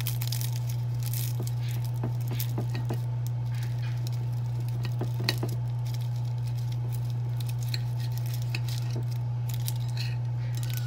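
Knife and fork cutting through a crisp phyllo pastry triangle, the flaky layers crackling in scattered small crunches, with a sharper click about five seconds in. A steady low hum runs underneath.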